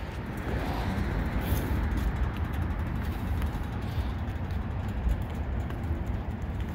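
2019 Indian Scout Bobber's V-twin engine through a Vance & Hines exhaust, just started and running at idle with a steady, deep, rough rumble.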